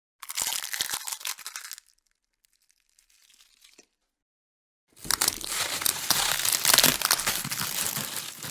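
Cartoon sound effects: a crackling noise lasting about a second and a half, a faint rustle, then a longer crackling noise of nearly four seconds.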